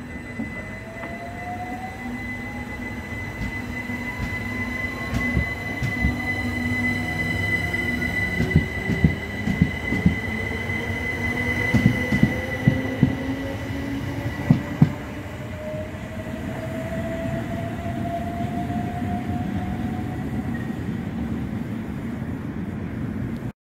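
Southern Class 377 Electrostar electric multiple unit pulling away from the platform, its motor whine rising in pitch as it gathers speed, with a steady high tone that fades out about two-thirds through. A run of sharp knocks from the wheels over rail joints and points comes in the middle as the carriages pass.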